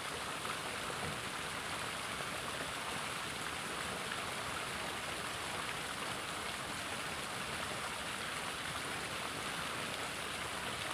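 Steady rushing of a small river's current flowing over a shallow, rippling stretch.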